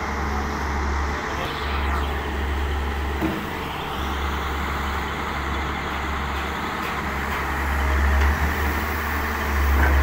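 Hitachi wheeled excavator's diesel engine running steadily as the machine works, getting louder near the end as the bucket digs into the pile.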